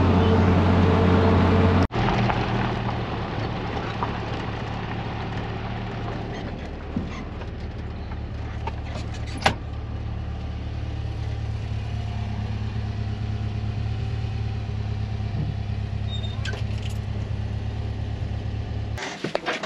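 VW Kombi engine running at highway speed for the first two seconds, then, after a sudden break, idling steadily and low until it stops near the end. A single sharp click sounds about halfway through.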